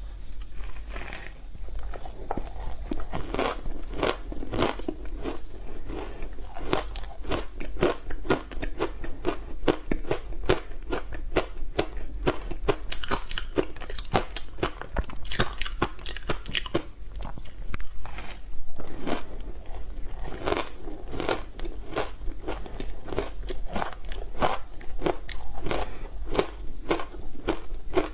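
Close-up crunching of block ice frozen from matcha tea and sweet potato powder, being bitten off and chewed in big bites. The crisp crunches come steadily, about two to three a second.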